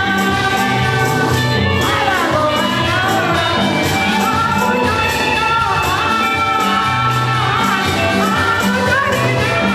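Church music with singing over a steady beat of bass notes and high percussion, continuing without a break.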